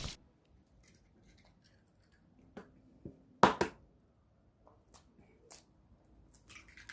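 Raw eggs being handled and eaten: a few short clicks and knocks spread over a near-quiet stretch, with one louder sharp noise about three and a half seconds in.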